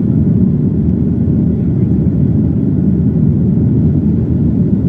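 Cabin noise inside a Boeing 737-900: the steady low rumble of the CFM56 jet engines and the airflow, heard from a seat at the rear of the cabin.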